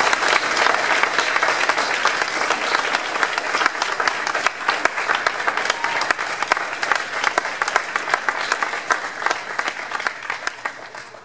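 Audience applauding: many hands clapping together, thinning out and fading away near the end.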